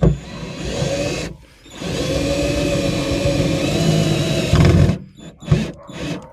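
Power drill running in two bursts, a short one and then one of about three seconds, driving in the rod holder mounting screws. A few knocks follow near the end.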